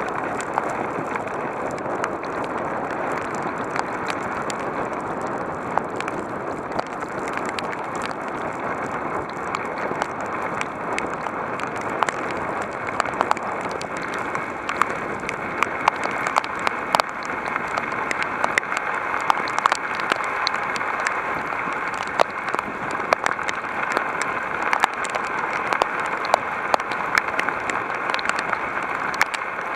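Heavy rain falling steadily, a dense hiss with many sharp drop ticks on hard surfaces, the ticks growing more frequent in the second half.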